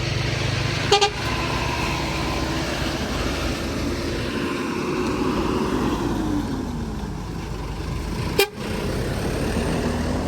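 Heavy road traffic, trucks and buses passing slowly with their engines running, one engine note holding and then falling in pitch about six seconds in. A short sharp sound about a second in and another near the end.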